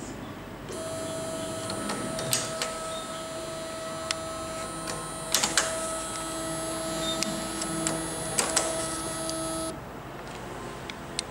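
A geared electric motor with a white plastic gear turns a eurocylinder door lock, giving a steady whine for about nine seconds. Sharp clicks from the lock come in pairs about every three seconds.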